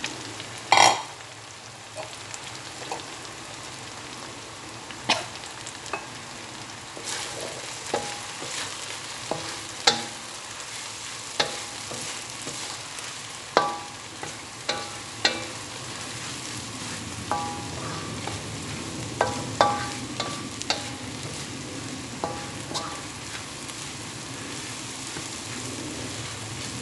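Crumbled tempeh and chili-shallot paste sizzling in hot oil in a wok while a wooden spatula stirs and scrapes, with irregular sharp knocks of the spatula against the pan. A loud ringing clank about a second in.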